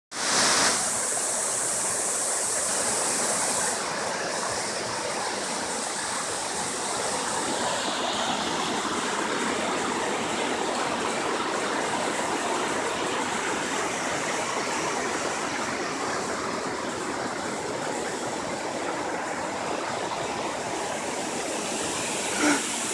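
Steady rush of a waterfall cascading down rock ledges into a forest creek, easing slightly about four seconds in.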